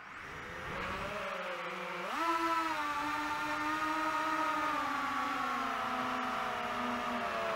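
DJI first-person-view quadcopter's motors and propellers whining as it takes off: the pitch jumps up sharply about two seconds in, then sinks slowly as the throttle eases.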